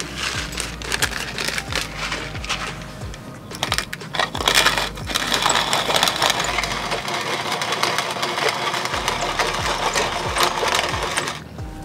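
Hand-cranked wooden-box burr grinder grinding whole black peppercorns: a steady crunching crackle as the crank turns. It stops shortly before the end.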